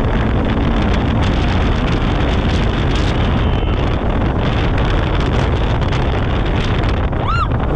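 Polaris RZR 1000 side-by-side driving over a dirt track, its engine running steadily under heavy wind buffeting on the microphone, with scattered knocks from the bumps. A brief high whoop near the end.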